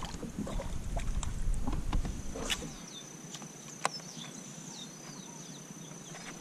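Low rumble of wind and water handling by the kayak's side with scattered clicks, cutting off a little under three seconds in. Then river ambience: a thin steady high insect drone, short falling bird chirps and one sharp click.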